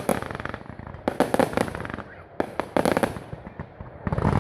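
Fireworks going off in clusters of rapid crackling bangs, with a short lull about two seconds in before more volleys near the end.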